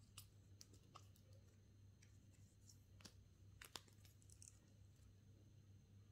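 Faint clicks and ticks of a Casio G-Shock's resin strap and metal buckle being unfastened and the watch handled as it comes off the wrist: a handful of soft separate clicks, the sharpest about three and a half seconds in.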